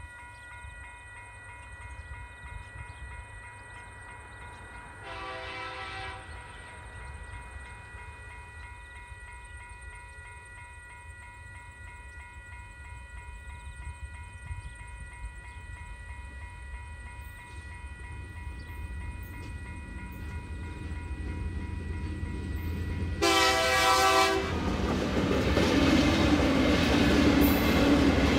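Level-crossing bell ringing steadily while a coal train hauled by TasRail TR-class diesel locomotives approaches. The lead locomotive sounds its horn twice, each blast about a second long, once about five seconds in and again louder about 23 seconds in. In the last few seconds the locomotives and coal wagons rumble loudly over the crossing.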